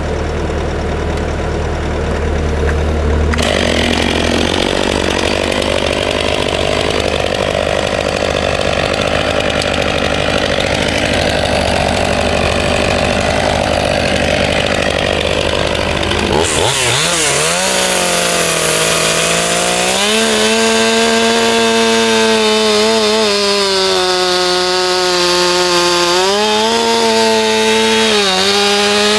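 Stihl MS 500i chainsaw running at high revs and cutting through a white pine log, its pitch dipping and recovering as the chain bites in. A low engine hum is heard in the first few seconds.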